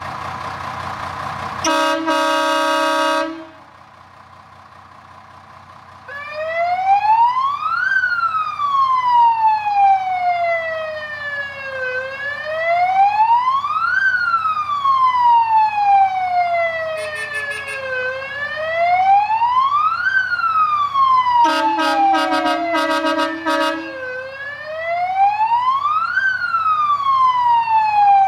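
Star 266 fire engine's warning signals. About two seconds in, its air horns blow one chord lasting over a second. Then a Horn Elektronik electronic siren sounds a slow wail, rising over about two seconds and falling over about four, cycle after cycle; partway through, the air horns sound again in a run of short, stuttering blasts over the siren.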